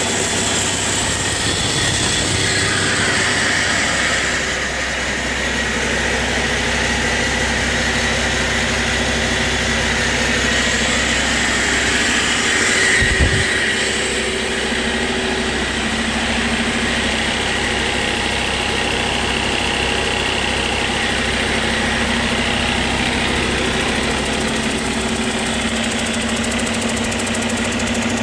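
2015 Cummins ISX15 inline-six diesel engine running steadily on a test run, with one short thump about halfway through.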